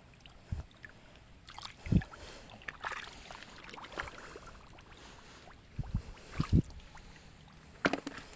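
Shallow muddy water sloshing and splashing in short, scattered bursts, with a few dull thumps, as someone wades and gropes for fish.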